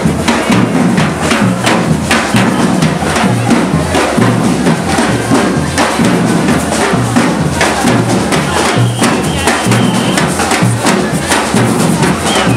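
Carnival street drums beaten in a steady, driving rhythm, with deep bass-drum thuds under sharper strokes, over the noise of a crowd. A high held note sounds briefly about two-thirds of the way in.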